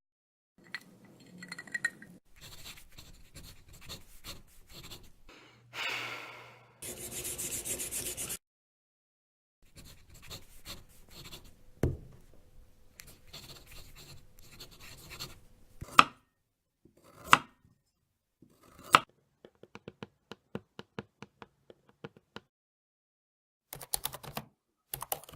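A string of separate foley sound effects made with household objects: scraping and rustling, a hiss about seven seconds in, three sharp knocks, a quick run of ticks, then a clatter near the end.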